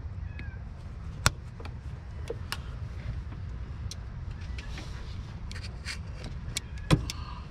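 Hand tools clicking and tapping against engine parts in an engine bay, with two sharp, loud clicks about a second in and near the end, over a steady low rumble.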